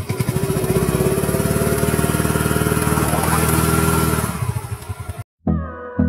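TVS Jupiter scooter's single-cylinder engine revved hard and held high as the scooter is driven out of a muddy puddle, the revs falling away about four seconds in. The sound then cuts off, and soft background music with a steady beat starts near the end.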